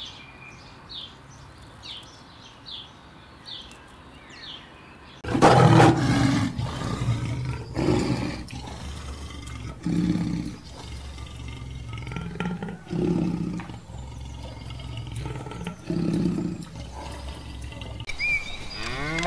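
A lion roaring: a loud first roar about five seconds in, then a run of shorter, deeper roars every two to three seconds. Before it, faint bird chirps repeat about once a second.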